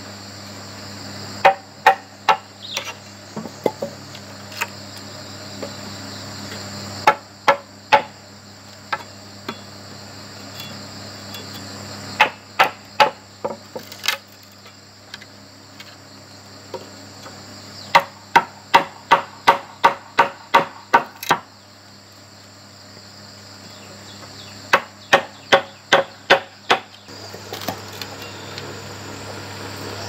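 A heavy cleaver chopping a notch into a green bamboo pole: groups of sharp knocks with pauses between, the fastest run about four strikes a second. Insects chirr steadily in the background.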